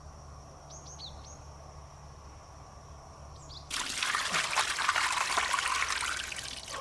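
Water pouring and splashing, starting suddenly about four seconds in. Before that there is only a faint low hum and a few faint high chirps.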